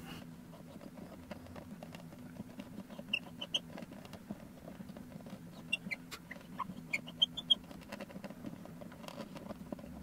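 Hand tap being turned in a tap wrench, cutting a thread dry into a cast-resin shift knob: faint creaks and clicks, with a few short high squeaks about three seconds in and again between about six and seven and a half seconds.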